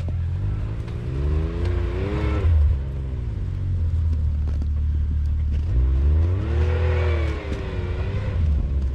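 Vehicle engine running with a steady low drone, revved up twice: the pitch rises and then falls off, about a second in and again past the middle.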